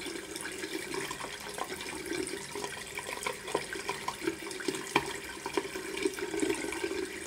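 Water running from a tap into a bathroom sink, with scattered short splashes and knocks.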